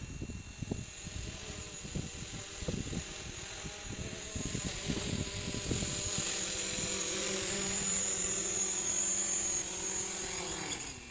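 DJI Mavic Pro quadcopter's propellers buzzing with a high whine, growing louder as the drone comes in close and descends to land. Near the end the pitch drops and the buzz dies away as the motors spin down after touchdown. Gusty low rumbles run under it in the first half.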